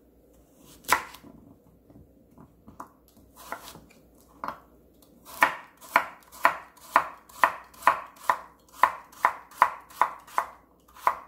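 Chef's knife slicing a carrot on a wooden cutting board: a few scattered cuts at first, then from about five seconds in a steady run of knife strikes, about two a second.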